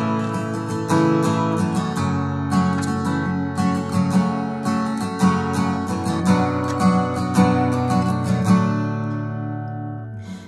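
Acoustic guitar strummed in a steady rhythm, playing a chord-based intro. About eight and a half seconds in, the strumming stops and the last chord rings out and fades.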